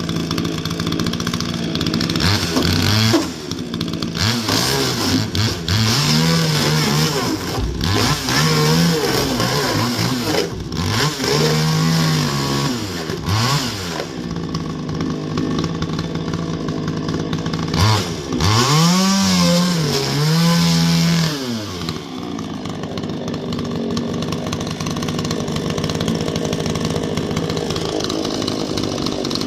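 Chainsaw engine running, its throttle blipped up and down again and again, then settling to a steadier run near the end.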